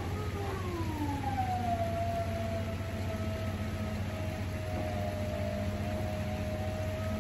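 Dump trailer's hydraulic pump motor whining as it tries to raise a heavily loaded bed: the whine drops in pitch over the first second or so, then holds steady for the rest of the time, over a low steady hum. The trailer is overloaded.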